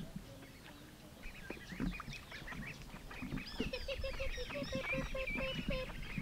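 A flock of ducklings peeping, many high, short calls overlapping. The calls start about a second in and grow busier, with a run of lower, evenly repeated notes through the middle.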